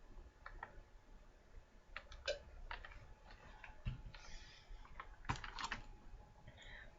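Faint scattered clicks and light taps, with a low thump about four seconds in followed by a short rustle, and another brief rustle near the end.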